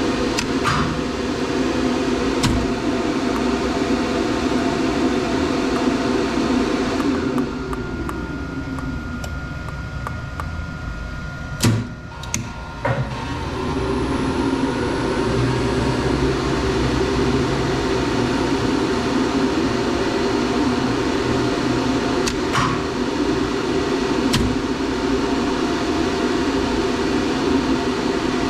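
Elevator machinery running with a steady hum. It winds down to a stop about eight seconds in, gives a few sharp clicks around twelve seconds, then starts up and runs steadily again.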